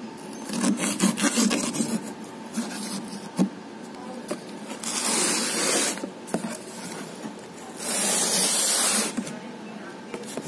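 Knife cutting and scraping along the packing tape and cardboard of a parcel box: a run of small clicks and scrapes at first, then two long rasping strokes about five and eight seconds in.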